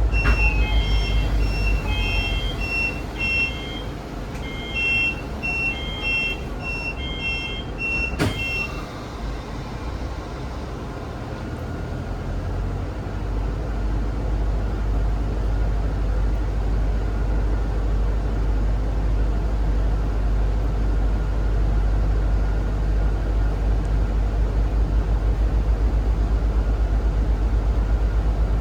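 Aboard a Zhongtong hybrid range-extended city bus: a patterned electronic warning beep repeats for about eight seconds and stops just after a sharp clunk. Under it the bus's drivetrain drones low and steadily, growing louder from about twelve seconds in.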